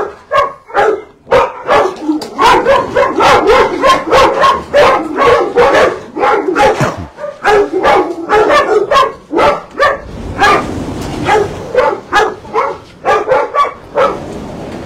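Several kennelled dogs barking together in a dense run of overlapping barks. About ten seconds in the barking thins out over a steady hiss.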